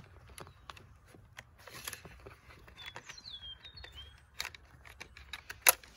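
Scattered small clicks and ticks of hands handling perimeter wire against the plastic robotic-mower docking station while threading it through, with a sharper click near the end. A bird gives a few short, falling chirps in the middle.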